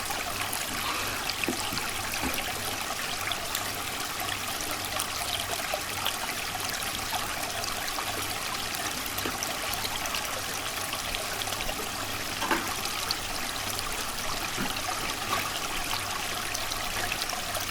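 A stream flowing steadily, a constant rush and trickle of water, with one brief faint knock about twelve seconds in.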